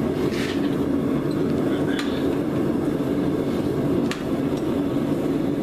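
Gas forge running with a steady low rush, and three light metallic clicks, about two seconds apart, as steel tongs reach into the forge for the glowing spring clip.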